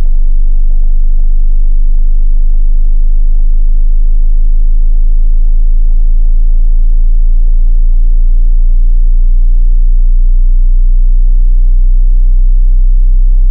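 Hearing-test tone: a loud, steady, very deep tone in the lowest bass, below about 50 Hz.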